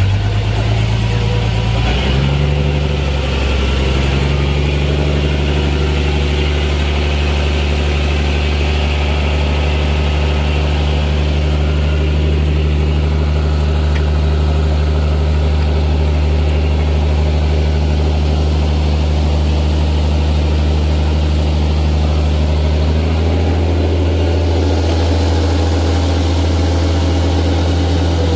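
An engine running steadily at idle, a deep even drone that shifts slightly in pitch a couple of seconds in and again near the end.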